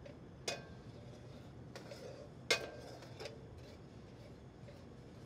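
A metal spoon stirring sugar in a hot frying pan as the sugar melts for caramel. It clinks and scrapes against the pan, with a sharper clink about half a second in and a louder one about two and a half seconds in, each ringing briefly.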